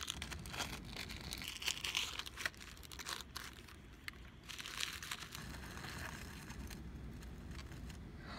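A small wrapping packet being opened and unwrapped by hand. The thin tissue paper and plastic crinkle and rustle in a continuous run of small crackles.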